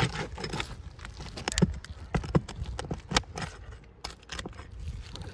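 Asphalt roof shingles being pried and pulled up for a repair: a run of irregular sharp clicks and knocks with light scraping, the loudest about one and a half seconds in.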